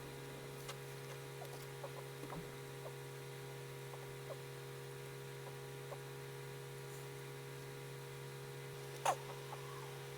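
Steady low hum under faint, scattered ticks of a pencil touching paper, with one sharper tap about nine seconds in.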